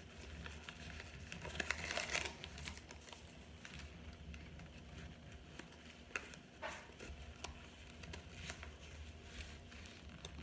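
Air-fried, toasted cornstarch chunk being broken and crumbled between the fingers: a run of crisp crackles and crunches, busiest about two seconds in.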